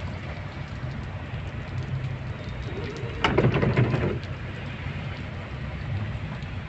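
A car driving on a wet road, heard from inside: a steady low rumble with a hiss of tyres on water, and a brief louder sound a little past the middle.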